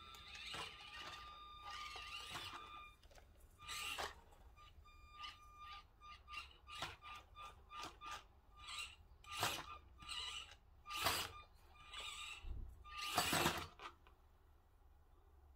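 Tiny electric drive motor of a 1:24 Axial SCX24 crawler whining in short throttle bursts as it climbs, with clicks and knocks of its tyres and plastic body against logs and another RC truck. The loudest knocks come about 13 seconds in as it tips over onto its side.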